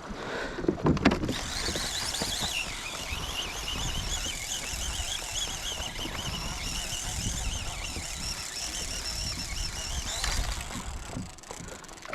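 Fishing reel's drag squealing as a hooked fish pulls line off, a wavering high-pitched tone lasting about nine seconds, over a low wind rumble.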